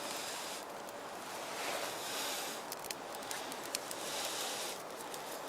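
Birch bark catching alight in a volcano stove: a soft hiss that swells and fades a few times, with small crackles and clicks in the middle.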